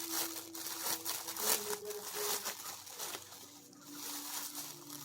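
Plastic packaging crinkling and crackling in bursts as a package is unwrapped by hand, quieter in the last couple of seconds.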